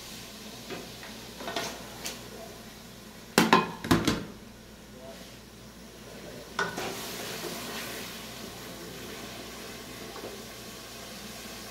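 Raw chicken pieces going into a steel pot of hot fried masala, with a cluster of loud clanks of plate and wooden spatula against the pot about three and a half seconds in. From about six and a half seconds the chicken sizzles steadily as it is stirred.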